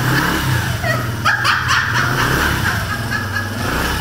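A child's four-wheeler (quad) running steadily with a low hum, with laughing over it.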